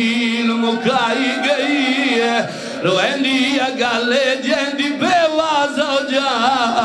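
A man's voice through a loudspeaker system, chanting a sung elegiac lament (a zakir's majlis recitation) in long wavering melodic phrases, with a short break about two and a half seconds in.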